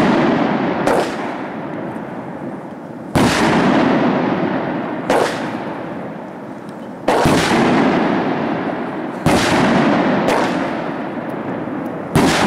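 A box of multi-shot fireworks firing a string of loud bangs, a big one every two seconds or so with smaller ones between. Each bang trails off in a long rumbling echo.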